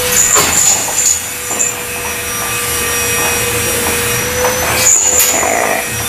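A crow's wings flapping and scuffing as it flies off a shelf in the first second or so, with another short flurry of clicks and scrapes about five seconds in as it lands on a metal stand. All of this sits over a steady background hum with a thin, even whine.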